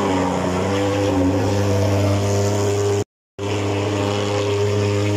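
Portable thermal fogging machine running with a steady, even buzz as it puffs insecticide smoke against mosquitoes. The sound cuts out completely for a moment about three seconds in, then resumes.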